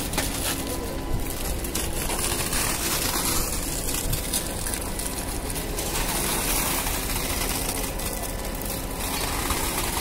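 Concrete pump running steadily, a constant low hum with many small knocks, as wet concrete is discharged from the boom placer's end hose onto a rebar slab.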